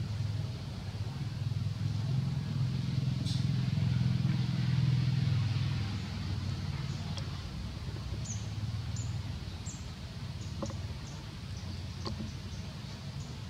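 Low engine rumble of a motor vehicle, growing louder through the middle and easing off after about six seconds. Faint short high chirps come in over it in the second half.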